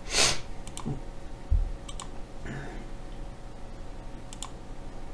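A few sharp computer-mouse clicks scattered over the seconds, with a short hiss at the start and a dull low thump about a second and a half in.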